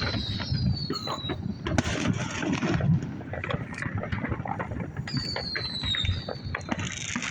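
Neighbourhood fireworks going off at a distance: scattered pops and crackles, with a high whistle that falls slowly in pitch at the start and again about five seconds in.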